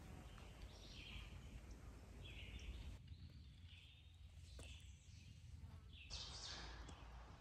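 Near silence: faint woodland ambience with soft, distant bird calls.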